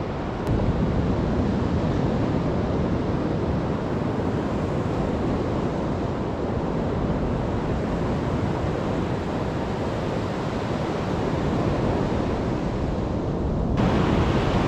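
Steady wash of ocean surf breaking on the beach, mixed with wind on the microphone.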